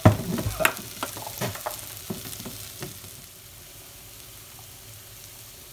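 Celery and tomato paste sizzling at full heat in a stainless-steel pot, with a wooden spatula scraping and knocking against the pot over the first three seconds, then the steady sizzle alone. The tomato paste is browning and starting to catch on the bottom of the pot.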